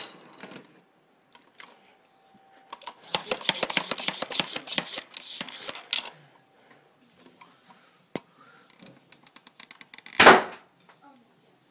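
Buzz Bee toy foam-dart blaster being handled: a sharp click at the start, then a few seconds of rapid clicking and rattling. About ten seconds in comes one loud, short, sharp blast as it fires.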